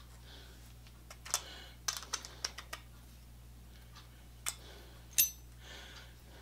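Light clicks and taps of small metal carburetor parts being handled and fitted together by hand, with a sharper metallic clink about five seconds in.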